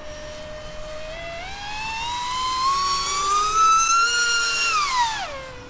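Whine of the TechOne FPV900 flying wing's T-Motor F80 2500 KV brushless motor and 5x5 three-blade prop in flight. The pitch climbs steadily and grows louder over about four seconds as the motor speeds up, then drops back quickly just after five seconds.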